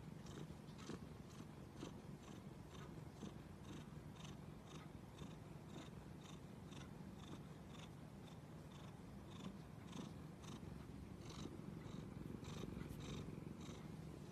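Domestic cat purring steadily as its head is scratched, a low continuous rumble, with soft rustling ticks about twice a second from fingers rubbing through its fur.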